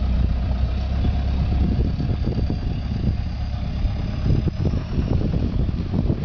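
A vehicle engine running steadily with a deep drone, with uneven low bumps and rumbles over it.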